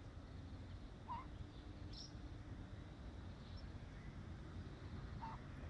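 A few brief, faint bird chirps, the two clearest about a second in and near the end, over a steady low outdoor rumble.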